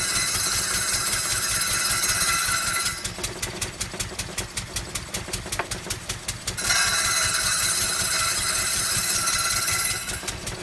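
Lister D single-cylinder stationary engine chugging steadily as it drives a circular saw. The blade whines loudly through two cuts in wood: the first ends about three seconds in, and the second runs from about six and a half to ten seconds in.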